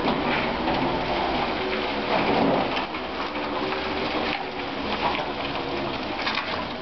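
Electric-converted VAZ-2106 rolling slowly out of a garage with no engine note: an even crackle of tyres on the gritty floor, with a faint steady hum underneath.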